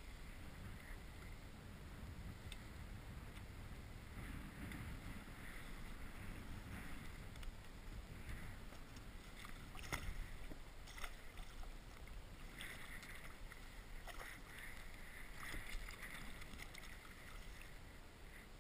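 Water lapping and splashing against a kayak's hull in choppy wind, over a steady low rumble, with a few sharp knocks near the middle and later on.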